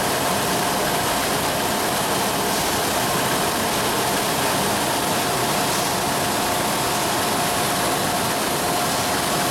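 Automatic high-speed OPP labeling machine for round bottles running continuously: a constant mechanical noise with a steady hum running through it.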